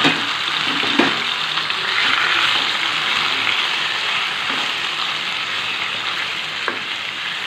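Raw marinated chicken pieces sizzling steadily in hot oil in a nonstick kadai while being stirred with a wooden spatula. There are two sharp knocks about a second apart near the start.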